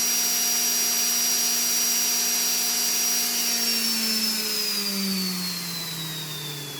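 3D-printed axial-flux brushless DC motor driven by a JY01 controller on 12 volts, running steadily at speed with a high whine. About three and a half seconds in, its pitch starts to fall steadily and it grows quieter as the motor slows down.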